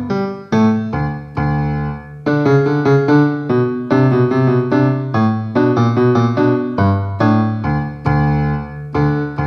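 Solo piano-style keyboard music: chords and a melody line, each note struck sharply and left to die away, several notes a second.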